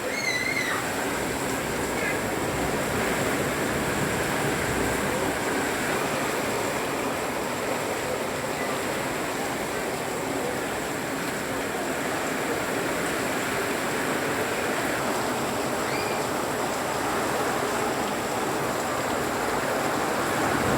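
Heavy downpour and rushing water, a steady unbroken hiss.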